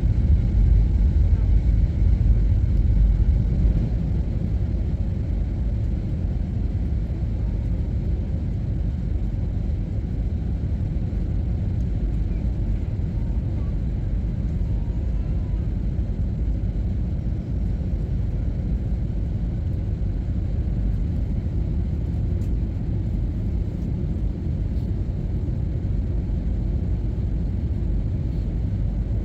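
Airbus A321ceo cabin noise: a steady low rumble of the jet engines and airflow, heard from inside the cabin, a little louder for the first few seconds and then level.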